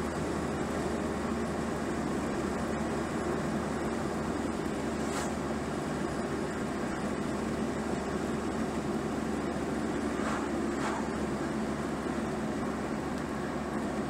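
Steady road and engine noise heard inside the cabin of a moving car. Oncoming vehicles swish past, once about a third of the way in and twice close together about three quarters of the way in.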